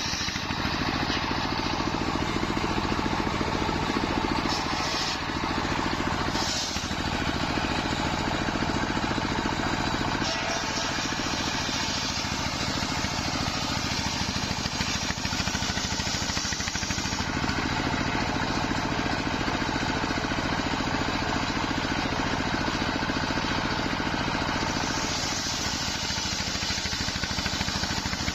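Engine-driven circular sawmill running steadily while its wide blade cuts nyampoh timber: a steady engine hum under a high rasping hiss from the cut that swells and eases every few seconds.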